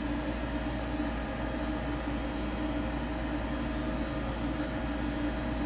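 Hwacheon Sirius 550 CNC vertical machining center powered up and humming steadily, several constant tones over a low hum, as its Z axis is checked for backlash.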